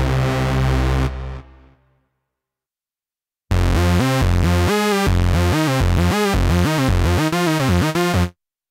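Cherry Audio Octave Cat software synthesizer, an emulation of the Octave CAT, playing lead presets. A held note fades out about a second in. After a short silence the 'Modular Saw' lead plays a quick run of notes whose tone sweeps up and down, then cuts off sharply near the end.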